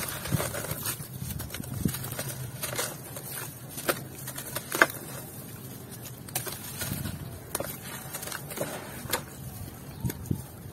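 Lumps of dried, grainy red dirt crushed by hand, crunching and crumbling in irregular crisp crackles and snaps, the sharpest a little under five seconds in, as the grit falls into a tub of water.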